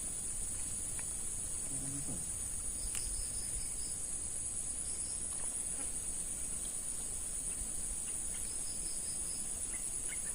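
Steady, high-pitched insect chorus droning without a break, with a short run of quick chirps about three seconds in and again near the end.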